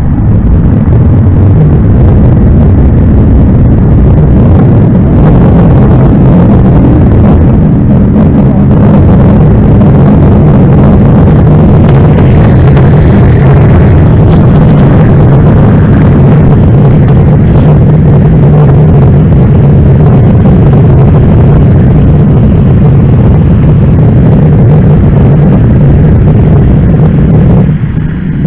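Engine running steadily at high revs, loud and unbroken, with a rushing hiss over it.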